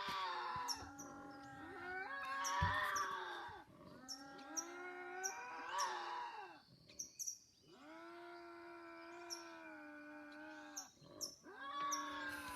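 A series of about four long, drawn-out wailing cries, each holding a pitch that bends up and down, from an unidentified creature. The tone is described as "painful". Short, high chirps repeat throughout in the background.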